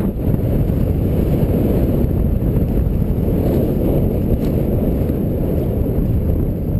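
Airflow from the paraglider's forward flight buffeting the microphone during the low final glide to landing: a steady, heavy, low-pitched wind noise.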